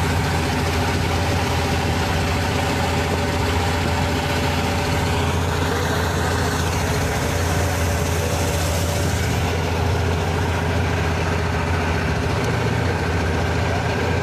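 A fishing boat's engine running steadily: a low, even drone that does not change in pitch or level.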